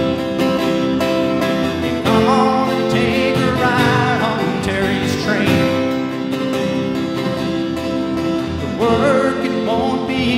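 Acoustic guitar strummed steadily, with a man's singing voice coming in over it in a couple of sung phrases.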